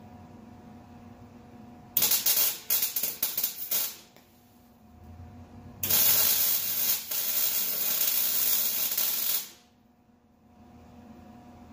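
Electric arc welder laying two tack welds on a steel rear differential mount: a broken, sputtering crackle for about two seconds, then after a short pause a steadier crackle for nearly four seconds that cuts off suddenly.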